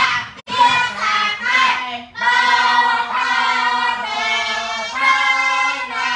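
A class reciting Khmer spelling syllables aloud together in a sing-song chant, as in a rote spelling drill. A few short syllables come first, then longer drawn-out ones from about two seconds in.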